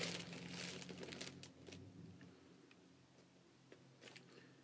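Faint crinkling of a fast-food sandwich wrapper being handled, dying away after about a second and a half into near silence with a low steady hum.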